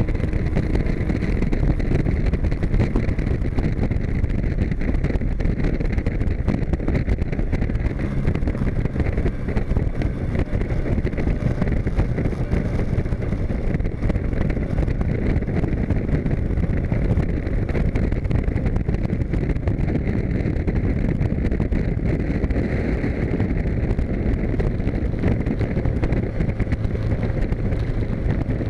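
Westfield open-cockpit sports car's engine running steadily at circuit speed, heard from inside the cockpit with wind and road noise rushing past.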